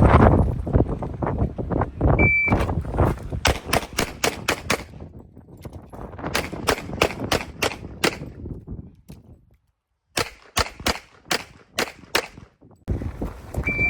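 A shot timer's short electronic start beep, then rapid strings of pistol shots, each string five or six shots fired in quick succession. Several strings follow one another, with a brief break about ten seconds in.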